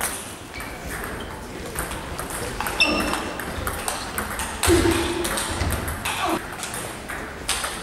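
Table tennis balls clicking off bats and tables, sharp irregular ticks from several tables in play at once, some with a brief high ring.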